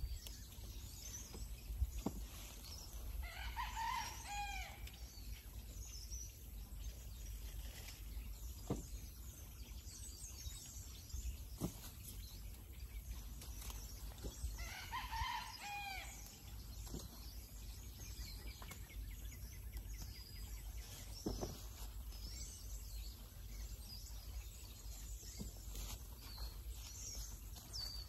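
A rooster crowing twice, about four seconds in and again about fifteen seconds in, each crow a couple of seconds long and ending in a falling note. A few faint clicks in between.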